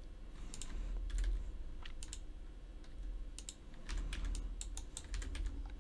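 Computer keyboard keys and mouse buttons clicking in short, irregular taps as shortcuts are entered: scattered single clicks and quick pairs over a faint low hum.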